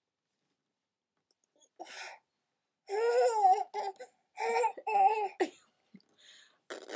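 A young girl making silly, wavering vocal noises in a few short bursts, starting about two seconds in after a moment of silence.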